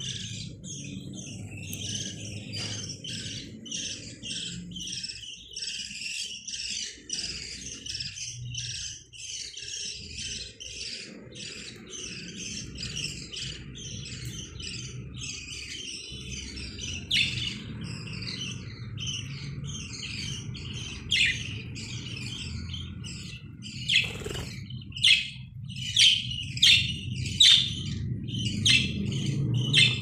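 A small flock of budgerigars chattering and chirping continuously, with a run of louder, sharp calls near the end, over a low background rumble.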